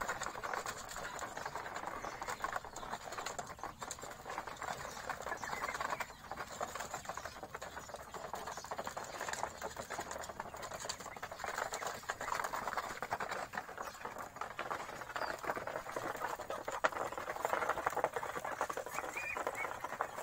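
Ducks feeding from shallow trays of grain, their bills rapidly dabbling and clicking against the feed and the trays in a dense, continuous patter.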